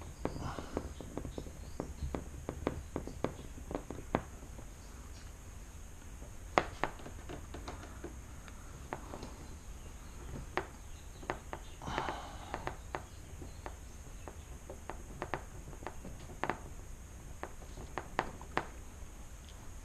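Irregular clicks, taps and light knocks from hand work on car interior trim and parts, over a steady low hum. The sharpest knock comes about six and a half seconds in.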